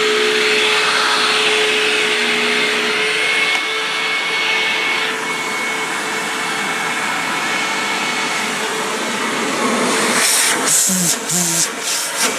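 Hoover WindTunnel vacuum cleaner running steadily with a continuous whine. About ten seconds in, a run of sharp clicks and knocks starts.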